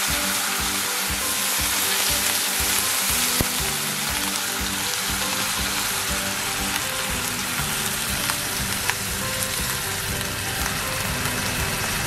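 Water poured into a hot cast-iron pot onto seared pork belly, sizzling and hissing steadily as it hits the hot metal and meat.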